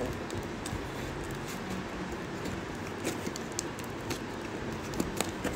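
Hands handling a taped cardboard parcel, giving a few light clicks and scrapes over a steady background hiss.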